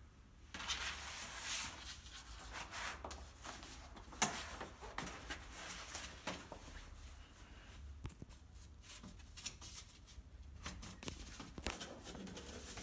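Corrugated cardboard carton being unfolded and folded up by hand: paperboard rustling and scraping, with several sharp clicks and taps as the flaps bend and meet.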